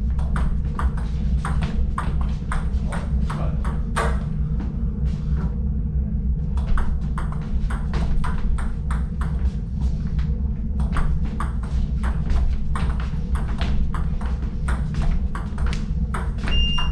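Table tennis ball clicking off paddles and the table in a fast back-and-forth rally, with short breaks in the rhythm twice, over a steady low hum.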